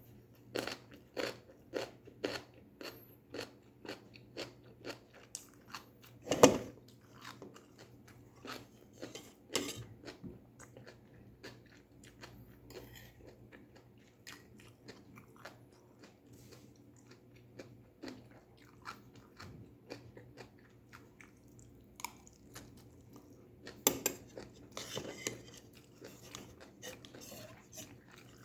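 A person chewing and crunching crisp stir-fried vegetables, with bites coming about twice a second at the start and a single louder knock about six seconds in. The chewing gets sparser and quieter through the middle, then a denser run of crunches comes near the end.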